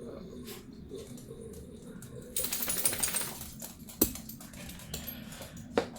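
Objects being handled: about a second of rustling noise some two and a half seconds in, then sharp clicks and knocks, the loudest about four seconds in.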